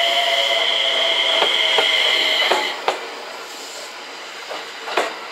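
JR West 227 series electric train passing at low speed, its VVVF inverter giving a steady high whine over sharp clicks of wheels on rail joints. The whine cuts off sharply about two and a half seconds in, leaving quieter wheel clicks.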